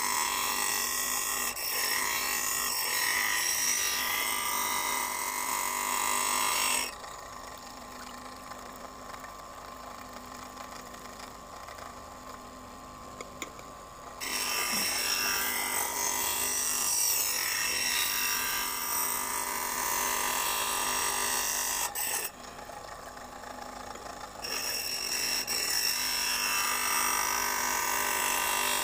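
Small bench grinder's thin wheel grinding the edge of a carbide-tipped planer blade: a loud, high-pitched grinding hiss. It comes in three long spells, and between them it drops to a quieter steady running as the blade comes off the wheel: for about seven seconds near the first quarter, and briefly about three quarters of the way in.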